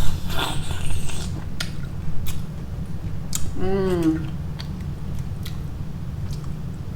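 Close-up eating sounds from someone eating seafood ramen: chewing and a noisy slurp-like sound in the first second, small scattered clicks, and a brief hummed "mm" a little past halfway, over a steady low hum.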